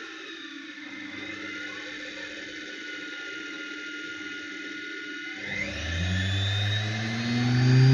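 A washing-machine brushed motor running slowly on an electronic speed controller, with a steady whine. About five and a half seconds in, it speeds up: the whine rises in pitch and gets louder.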